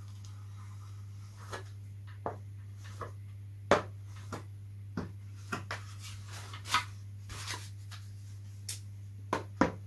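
Scattered sharp crackles and ticks of plastic covering film on a balsa model-plane wing as a covering iron is worked over it and the wing is handled, starting about a second and a half in, over a steady low hum.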